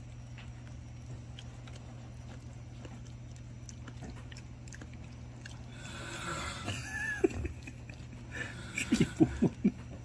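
A young dog chewing and biting at a piece of gompi seaweed held in the fingers: mouth noises begin about six seconds in, and a quick run of sharp bites comes in the last two seconds. A steady low hum runs underneath.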